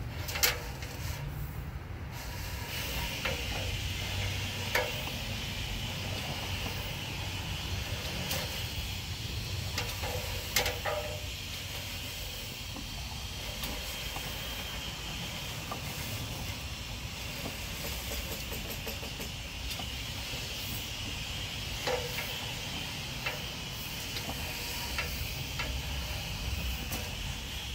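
Steady hiss over a low hum, with a few sharp clicks and knocks scattered through, while a sewer inspection camera's push cable is fed down a drain line.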